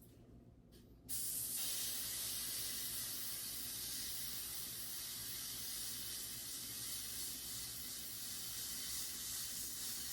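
Aerosol spray can being sprayed in one long continuous burst, a steady hiss starting abruptly about a second in.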